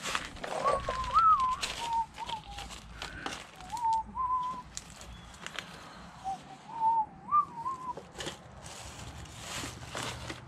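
A man whistling a tune to himself in three short wavering phrases, over rustling of plastic bags and shop towel and light clinks of small parts being handled.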